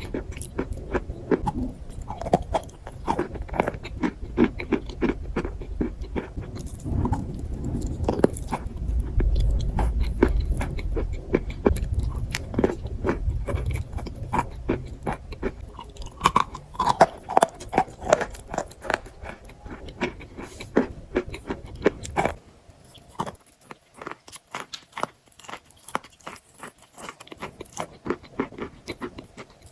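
Chalk being bitten and chewed: dense, sharp crunching and crackling, with many bites and chews in quick succession. A low hum underneath stops suddenly about two-thirds of the way through, and the crunches grow sparser after it.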